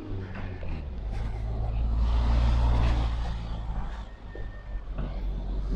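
A motor vehicle's engine running nearby with a low steady hum, growing louder to a peak about two seconds in and easing off after about four seconds, with a couple of light clicks near the end.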